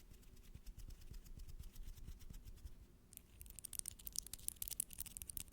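Close-miked ASMR scratching and tapping: a quick run of small clicks that turns into a denser, crisper scratching about three seconds in.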